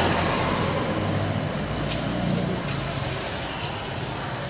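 Steady low vehicle rumble that eases off slowly over a few seconds, with a few faint light clicks.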